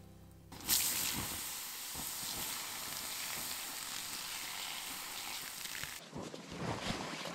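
Campfire embers doused with water, hissing and sizzling into a cloud of steam; the hiss starts suddenly about half a second in and holds steady. It stops abruptly about six seconds in, giving way to rustling and handling noises.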